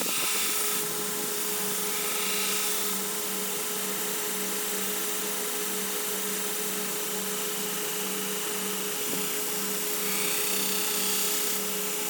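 Grizzly 2x42 variable-speed knifemaker's belt grinder running steadily with a 120-grit belt while a steel knife blade is ground against it. The grinding swells slightly near the start and again near the end.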